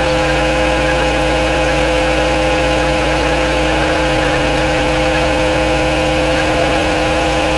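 Pressure washer running steadily, a constant motor hum with a steady higher tone over it.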